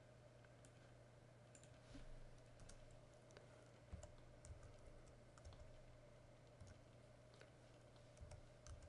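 Faint computer keyboard typing: scattered single key clicks at an irregular pace, over a steady low electrical hum.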